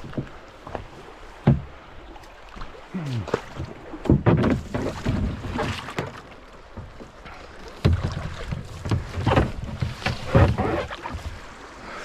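A kayak in a shallow creek: uneven paddle splashes and water sounds, mixed with hollow knocks and thumps against the hull. Several heavier knocks come in clusters through the middle and later part.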